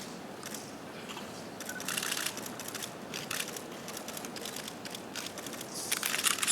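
Camera shutters of press photographers firing, single clicks and rapid bursts in irregular clusters, with the densest bursts about two seconds in and near the end, over a low room murmur.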